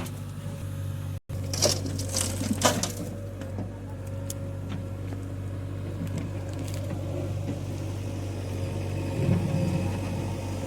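Heavy diesel engine running steadily at a soil-loading site. The sound drops out for an instant about a second in, and a few sharp knocks and crackles follow between about one and a half and three seconds in.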